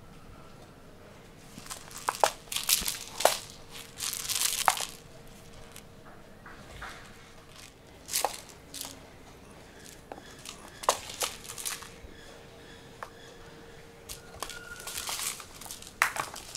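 Kitten batting and tussling with a furry toy mouse on a string on a wooden floor: irregular bursts of rustling and scratching with sharp clicks.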